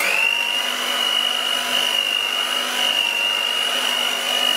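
Electric mixer running steadily at speed, a constant high motor whine as its beaters churn a thick cream cheese, sugar and coconut mixture.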